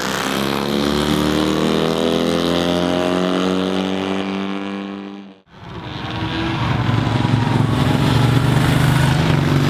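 A racing sidecar outfit's engine heading away after passing, its pitch falling steadily. About halfway through the sound breaks off sharply. Then a solo racing motorcycle's engine comes in and grows louder as it approaches at speed.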